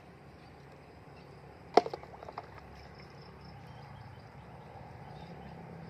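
A sharp knock, then a few quicker, lighter taps, over faint steady background.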